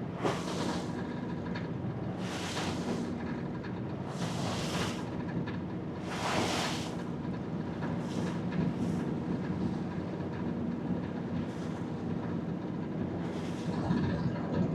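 Vaporetto water bus engine running steadily with a low hum. A rushing swoosh rises and falls about every two seconds, pauses midway, then returns near the end.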